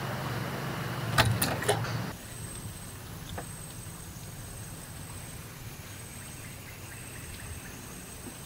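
A low, steady engine hum with a quick cluster of sharp clicks about a second in; the hum stops abruptly after about two seconds. What follows is quieter steady background with a faint high-pitched thin tone coming and going.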